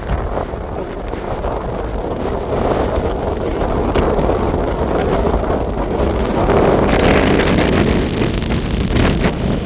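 Strong storm wind gusting and buffeting the microphone, swelling to its strongest a little past the middle, with a couple of sharp knocks near the end.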